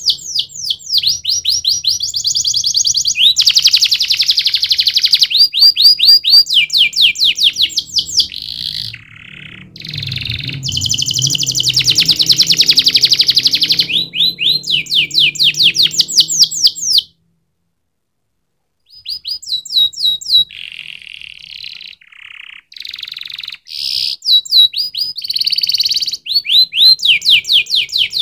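Domestic canary singing a long song of fast trills, each a run of rapidly repeated high notes that shifts pitch from one run to the next. The song stops dead for about two seconds around the middle, then resumes.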